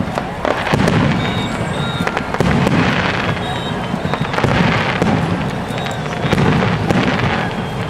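Fireworks display: shells bursting in quick succession, deep booms about once a second over continuous crackling.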